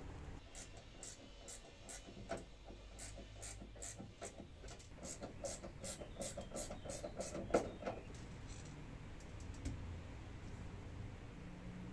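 Fast, fairly even clicking with light scraping, about three clicks a second, from hand work with a screwdriver on a van's pop-top canvas and roof frame. The clicking stops about eight seconds in.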